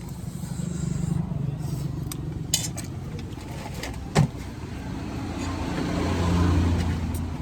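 A motor vehicle's engine running nearby, growing louder about six seconds in as it passes, with a couple of sharp clicks along the way.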